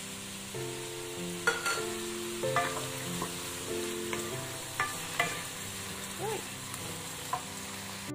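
Vegetables and tuna sizzling as they are stir-fried in a stone-coated non-stick wok, with a wooden spatula scraping and knocking against the pan several times.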